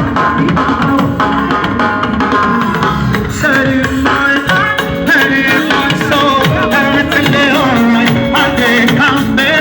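Live band music with drums and percussion, and singing that comes in about three and a half seconds in.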